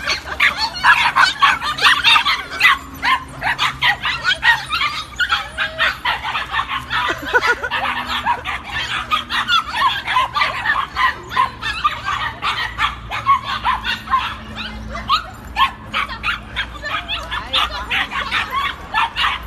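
A group of puppies yapping and yipping continuously, many short high-pitched barks in quick succession.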